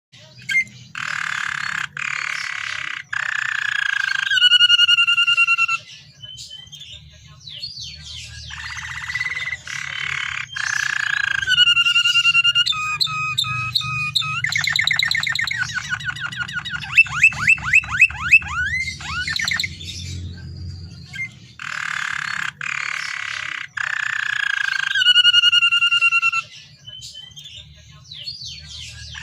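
Domestic canary singing a long, varied song: buzzy rolled phrases, whistled notes, and fast trills of rapid sweeping notes, with short pauses between phrases. The same run of phrases starts over about two-thirds of the way through. A faint low hum runs underneath.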